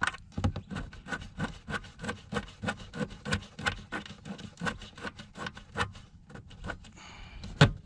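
Socket ratchet with a 10 mm socket and extension clicking in a steady run, about three clicks a second, while a bolt on a plastic cover is undone. One sharper knock comes near the end.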